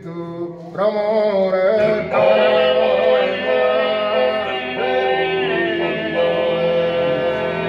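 Sardinian canto a tenore: a quartet of male voices singing a cappella in close harmony, with long-held low drone voices under the lead singer. The chord grows fuller about a second in and again about two seconds in.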